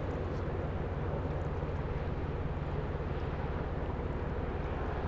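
Large container ship's engine running with a low, steady drone, over an even wash of noise.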